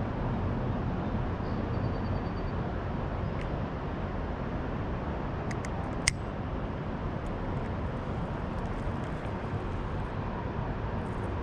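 Steady low outdoor rumble with no clear pitch, and one sharp click about six seconds in.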